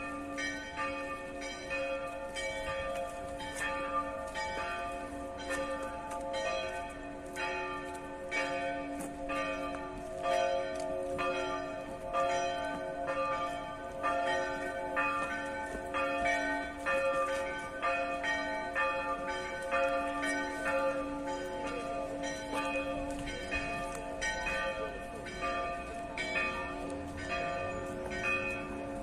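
Church bells ringing a continuous peal, with fast, even strokes about two a second over a lasting ring.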